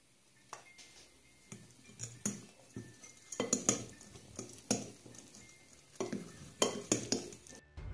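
Metal fork scraping and clinking against a ceramic bowl as flour is mixed into a curd-cheese batter to form dough: irregular strokes, few at first and coming thick and fast through the second half.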